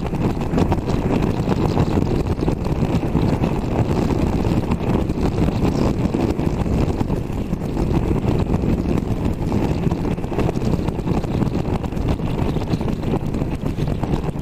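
Wind rushing over the microphone at motorway speed, over the steady running note of the Triumph Tiger Sport 660's three-cylinder engine at a constant cruise.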